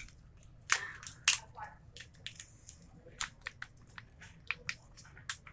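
Plastic toy packaging crackling and clicking as it is handled and opened, in irregular sharp snaps, two louder ones within the first second and a half.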